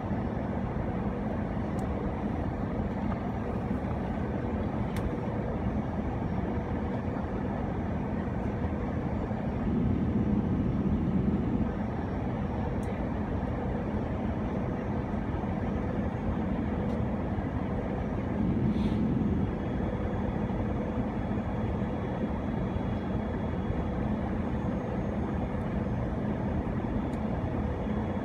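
Steady engine and airflow roar of an Airbus A319 descending on approach, heard inside the cabin from a window seat beside the wing. It swells briefly louder twice, about a third of the way in and again past the middle.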